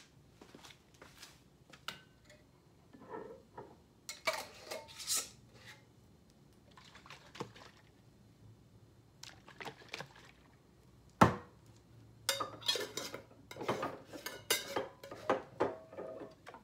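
Glass mason jars clinking and knocking as they are handled and set down on the counter, with one sharp knock about eleven seconds in and a run of ringing clinks in the last few seconds.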